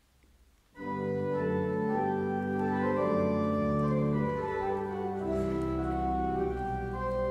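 Organ starts playing about a second in, after near silence, holding sustained chords that move slowly from one to the next, with deeper bass notes joining partway through: offertory music as the offering is received.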